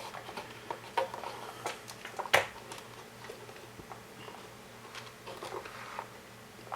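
Handling noise from robot parts being fitted into place: scattered small clicks and taps, with one sharper click a little over two seconds in.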